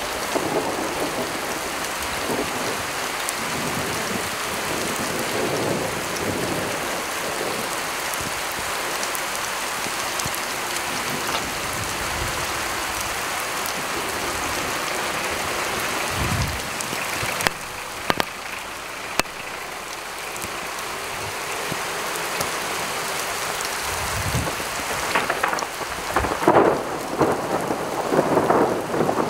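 Steady rain falling on wet pavement during a thunderstorm, with thunder rumbling about halfway through and again, louder and longer, near the end. A few sharp ticks stand out a little past the middle.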